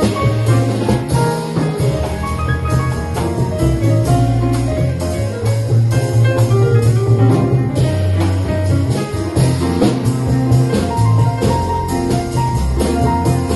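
Live jazz quartet playing an instrumental passage: double bass moving through low notes under piano, with drums and cymbals keeping time.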